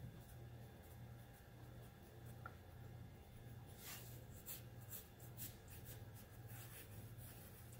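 Yellow wooden graphite pencil sketching on drawing paper: faint scratchy strokes that come quicker and more often from about halfway through, over a faint steady low hum.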